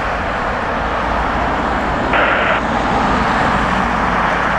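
Twin-engine widebody airliner's jet engines at takeoff thrust on the departure roll, a steady roar heard from beside the runway. A short burst of airband radio scanner hiss about two seconds in.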